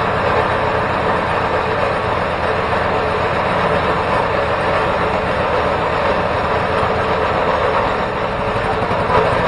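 Home-built 424cc inline twin engine made from two Predator 212 small engines, running steadily.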